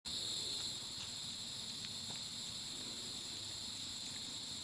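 Steady chorus of insects, several high-pitched buzzing tones held without a break, with a few faint clicks.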